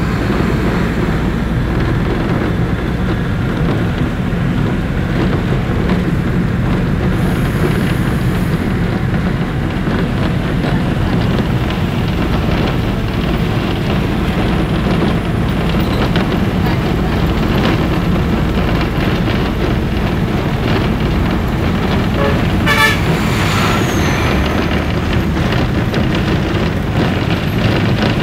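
Steady engine and road rumble heard from inside a moving road vehicle. Near the end comes a brief run of quick, higher-pitched pulses.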